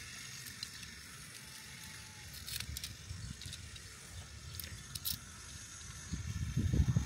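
A few light metallic clicks and rattles from hinged metal antenna rods being handled and unfolded. Underneath runs a low wind rumble on the microphone that grows stronger near the end.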